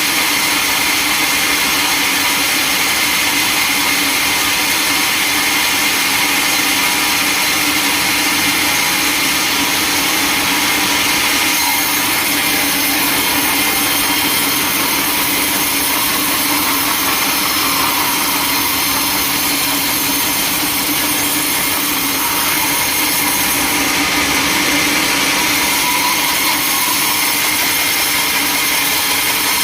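Sawmill machinery running steadily: a loud, even mechanical din with a constant high whine and hiss, changing slightly about twelve and twenty-four seconds in.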